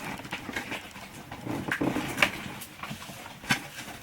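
Handling noise from a cardboard box being moved and opened: scattered light clicks, knocks and rustles, with a sharper click about three and a half seconds in.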